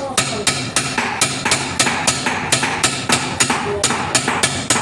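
A hammer striking metal in quick, even blows, about four a second, during repair work on a rotavator shaft and its bearing.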